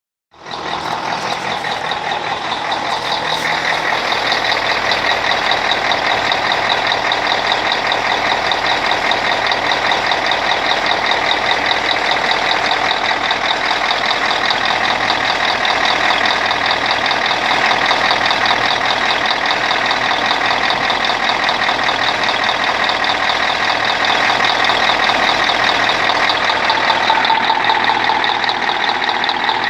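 YaMZ-238 V8 diesel engine running steadily with a knock that the owner hears in every mode except coasting.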